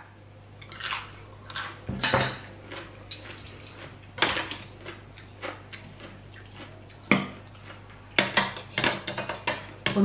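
Metal spoon and fork clinking and scraping against a plate of papaya salad in scattered short clicks, with a quicker cluster of clinks near the end.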